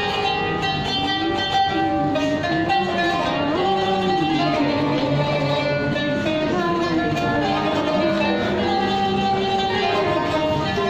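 Qanun, an Arabic plucked zither, playing a solo melody.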